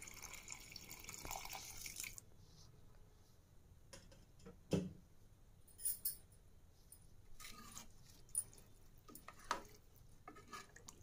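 Water pouring from a jug into a pressure cooker pot of rice and stock for about two seconds, then a few faint knocks.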